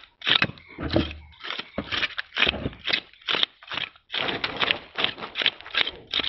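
A long-handled metal scraper raked again and again along a big fish's side, about three quick scraping strokes a second, tearing off its coin-sized scales.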